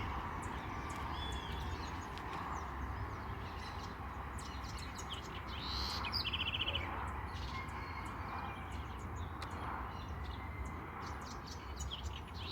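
Small birds chirping and calling, with a short rapid trill about halfway through, over a steady background hum.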